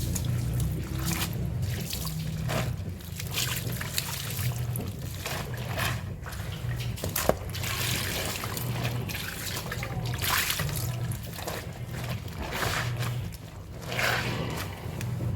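Water trickling and splashing as clothes are hand-washed in a basin, in irregular strokes, over a low steady hum that pulses about once a second.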